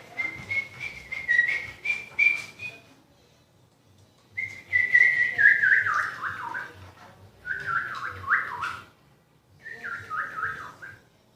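High whistling in four phrases: a steady fluttering whistle first, then three shorter phrases that step down in pitch.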